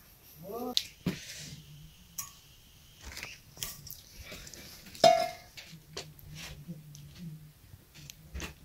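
Scattered clinks and knocks of bowls and kitchen utensils being handled, the loudest a sharp clink with a short ring about five seconds in. A brief rising-and-falling animal call sounds under a second in.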